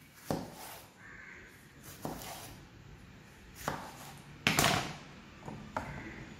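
Kitchen knife cutting tomatoes on a wooden cutting board, with several sharp knocks of the blade striking the board at irregular intervals.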